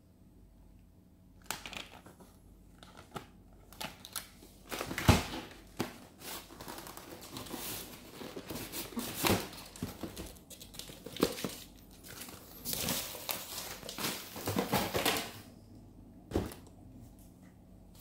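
Plastic and cardboard packaging crinkling and rustling as it is handled, with scattered clicks and knocks. The sharpest knock comes about five seconds in.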